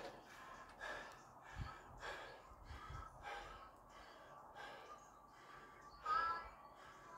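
A man breathing hard and fast after an all-out workout effort, in a run of heavy breaths. About six seconds in comes a louder, voiced gasp.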